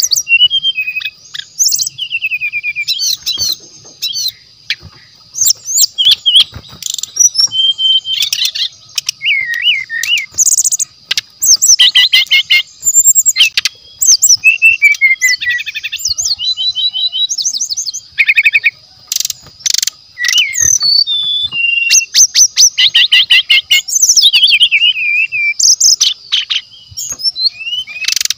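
A songbird singing a long, varied song of rapid trills, chattering notes and falling whistled phrases with almost no pause, over a steady high-pitched insect drone. It is a bird-keeper's lure recording of the sikatan rimba dada coklat (brown-chested jungle flycatcher).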